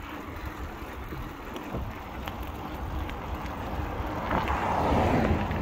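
Wind rushing over the microphone while riding a bicycle, over steady low road rumble; the rush grows louder about four seconds in.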